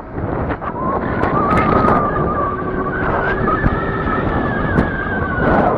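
Street riding noise on an Arrow 9a electric bike accelerating in speed setting 2: a steady rushing noise with traffic, and a high whine that rises in pitch over the first few seconds and then holds steady.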